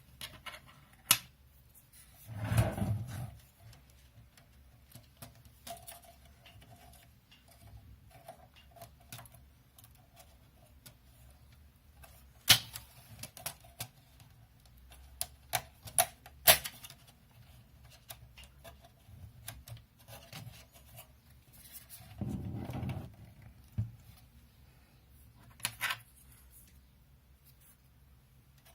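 Hands working on a NAS unit: scattered sharp clicks and taps of small plastic and metal parts, with two longer dull rubbing thumps, one about two and a half seconds in and one about twenty-two seconds in.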